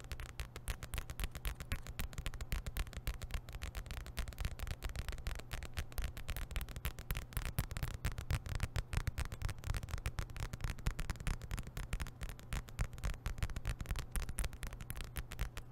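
Long nail-ring tips tapping and scratching rapidly on a stack of printed card packets held right against the microphone: a dense, continuous patter of fast, crisp clicks.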